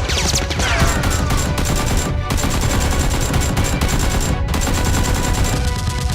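Rapid, sustained gunfire sound effects: a dense burst of shots that runs on without a break.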